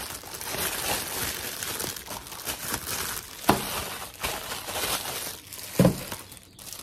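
Clear plastic packaging film crinkling and rustling as it is handled, with two louder knocks, about three and a half seconds and six seconds in.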